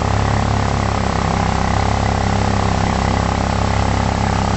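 Vehicle engine running steadily.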